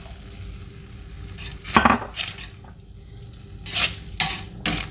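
Metal tongs clanking and scraping against a stainless steel skillet while spaghetti is tossed, in two bursts of sharp clatter: one about two seconds in, with the loudest strike, and another near the end.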